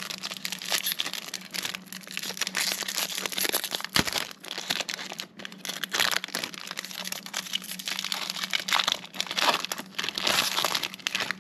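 Foil wrapper of a Bowman Chrome trading-card pack crinkling and tearing as it is worked open by hand, with one sharper crack about four seconds in.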